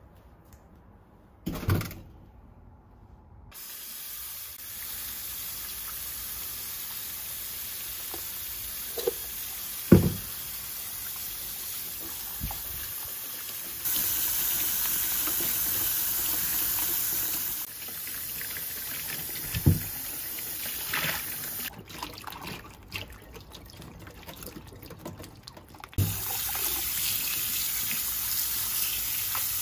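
Water running from a kitchen tap into a sink, its rush getting louder and softer a few times as the flow changes. A few sharp knocks sound against it, one just before the water starts and a couple more while it runs.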